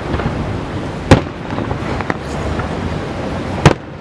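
Fireworks display: two loud bangs from shells bursting, about a second in and near the end, with a smaller pop between them over a continuous rumble of further fireworks.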